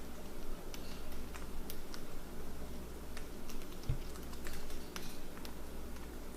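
Faint, irregular light clicks and taps over a steady low hum.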